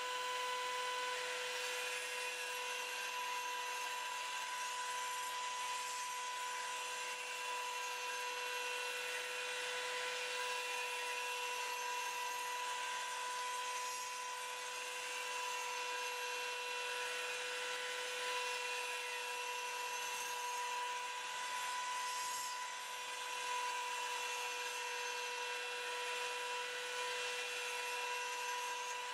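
Belt sander, clamped upside down in a vise, running at a steady whine while a scythe blade is ground against its sanding belt to set the blade's primary edge.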